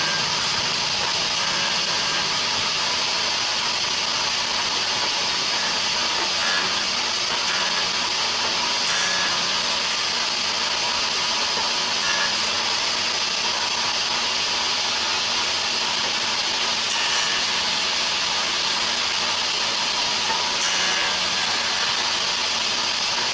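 Small belt-driven woodworking machine, likely a jointer, running with a steady loud hiss as the edge of a wooden cabinet door is pushed along its bed and planed.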